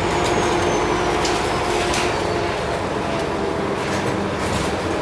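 Scania OmniCity single-deck bus running, heard from inside the passenger saloon: a steady engine and road noise with a few short knocks and rattles from the fittings. A faint high whine falls in pitch during the first second.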